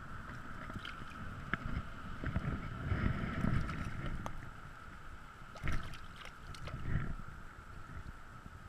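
Shallow river water sloshing and splashing around a wading angler's legs and hand as a small hooked fish is brought in and grabbed at the surface, with a few louder splashes.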